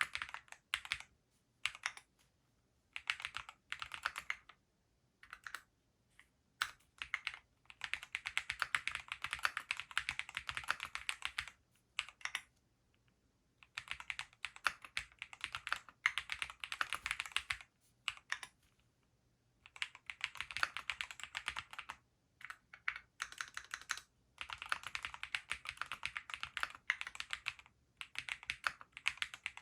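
Typing on a Graystudio Space65 III custom mechanical keyboard with Gateron Pure Berry linear switches: fast runs of keystrokes broken by short pauses.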